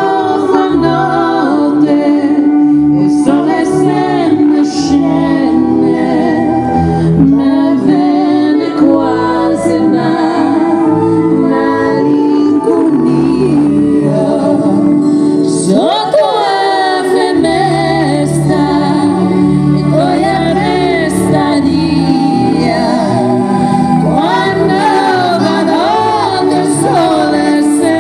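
A female vocal trio singing live with a backing band, amplified through a PA sound system.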